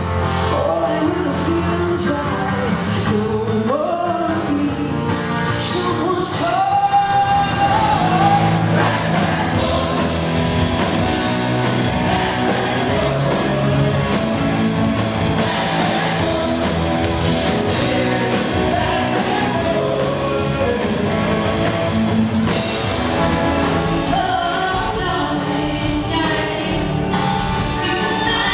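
Live concert music with a lead voice singing over guitar and band accompaniment, heard in a large hall.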